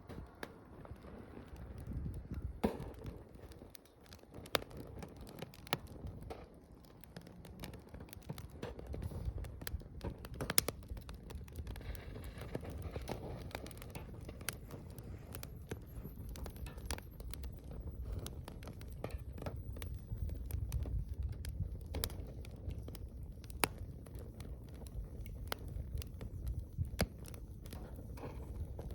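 Wood fire crackling, with many irregular sharp pops and snaps over a low, steady rumble.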